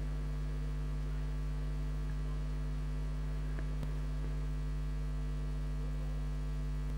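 Steady electrical mains hum, a constant low drone with a few higher overtones, from the sound system or recording line.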